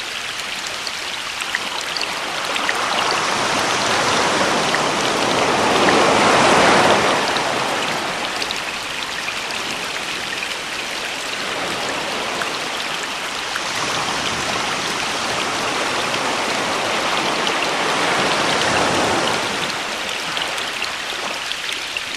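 Sea waves with rain falling: a steady hiss of rain with small drop taps, swelling as a wave surges in about six seconds in, and again more gently near the end.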